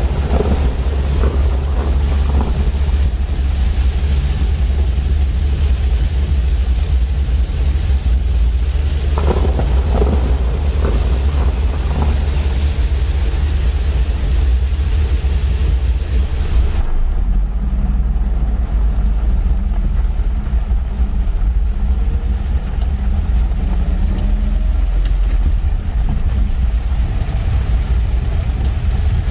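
Microvan driving in heavy rain, heard from inside the cab: a steady low engine and road rumble under the hiss of rain and wet tyres. The hiss drops off abruptly a little over halfway through.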